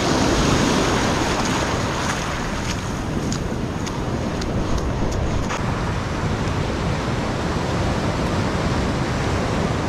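Surf breaking and washing up a beach, a steady rush of waves with wind on the microphone.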